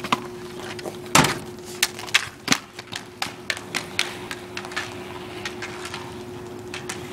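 Street hockey sticks clacking on asphalt and knocking a plastic street hockey ball, in irregular sharp taps with one louder hit about a second in. A steady faint hum runs underneath.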